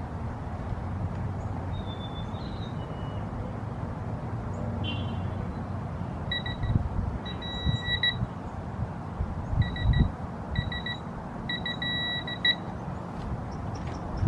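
Digital torque wrench beeping in short repeated bursts at a steady high pitch, signalling that the preset torque is reached, over a low steady hum with a few dull knocks.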